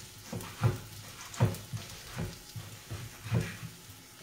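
Knife chopping guanciale on a wooden cutting board: a run of uneven knocks, about two a second, with a few louder strokes.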